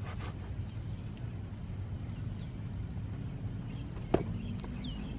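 A single sharp thud about four seconds in, as the body drops onto a rubberised running track at the end of a kick, over a steady low outdoor rumble. A faint bird chirp follows near the end.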